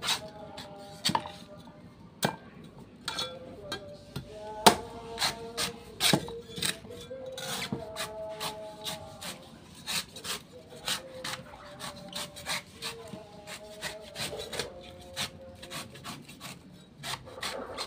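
A cleaver cutting and shaving the husk off a young green coconut: many irregular sharp cuts and knocks of the blade, with the scraping of steel through the fibrous husk and knocks against the wooden table.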